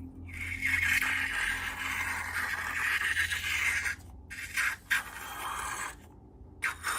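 A steady scraping, rubbing sound, broken by short pauses about four seconds in and again around six seconds in.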